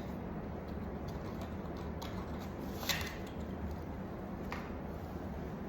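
Tarot cards being handled: a few light clicks and taps, the sharpest about three seconds in, over a steady low room hum.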